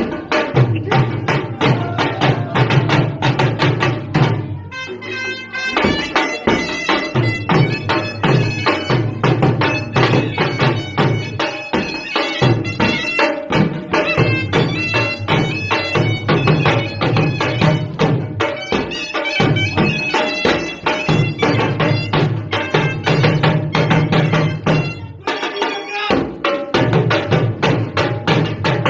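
Surnai (a loud double-reed shawm) playing a reedy melody over fast, steady dhol drum beats: live dance music. The drumming carries on while the melody drops out briefly about five seconds in.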